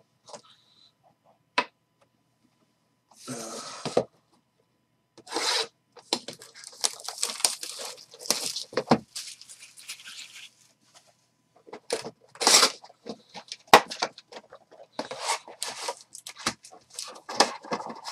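A sealed trading-card box being opened by hand: irregular tearing and crinkling of wrap and cardboard starting about three seconds in, with foil card packs rustling as they are pulled out and stacked.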